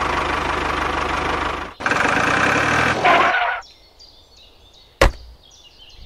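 Tractor engine sound effect running steadily, with a brief break just under two seconds in, then stopping about three and a half seconds in. A single sharp click follows near the end.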